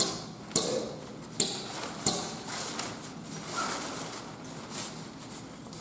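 Nylon tent cover rustling as it is handled and a tent pole is threaded through its sleeve, with four sharp clicks in the first two seconds.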